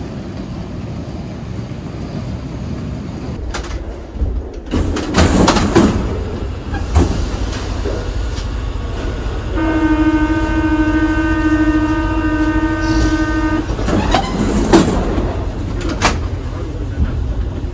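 Passenger train rumbling, heard from inside the carriage, with loud clunks and rattles about five seconds in and again near the end. In the middle a horn sounds one steady note for about four seconds.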